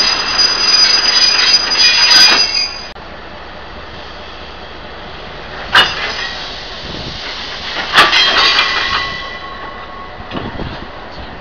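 Passenger coaches rolling past on the rails, their wheels squealing in high, steady tones that cut off abruptly about three seconds in. Quieter rolling follows, with two sharp clacks about two seconds apart, the second followed by a short squeal.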